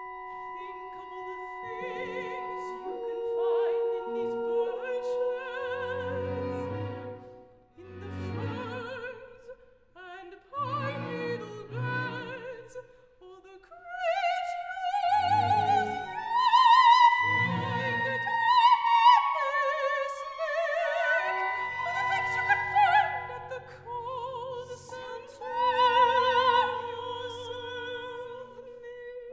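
Operatic female voice singing with a wide vibrato over a small chamber ensemble of woodwinds and strings. The opening is sustained instrument tones, low notes pulse in short groups underneath the voice, and from about two-thirds of the way in the ensemble holds long low chords.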